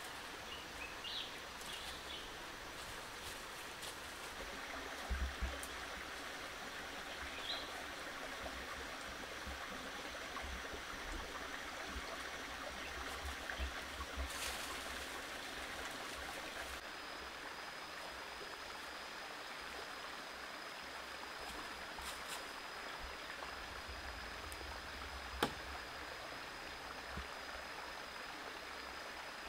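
Steady rushing of a shallow stream over rocks. A few short bird chirps sound early on, with dull thumps about five seconds in, a thin steady high tone from about halfway through, and a single sharp click near the end.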